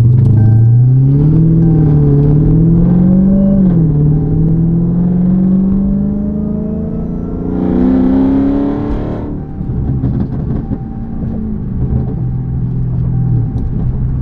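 Dodge Charger SRT Hellcat's supercharged 6.2-litre V8 revving up in a rising sweep, easing briefly about three and a half seconds in, then climbing again to its loudest about eight seconds in before dropping back to a steady idle.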